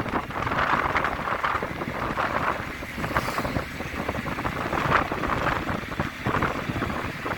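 Wind blowing across the microphone in uneven gusts, a rushing noise with a low rumble.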